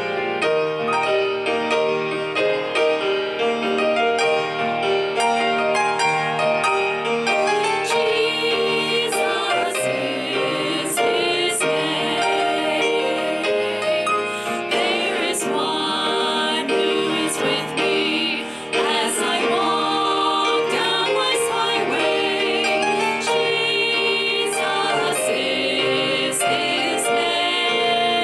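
Three women singing a song together into microphones over an instrumental accompaniment. The accompaniment starts alone, and the voices come in several seconds later.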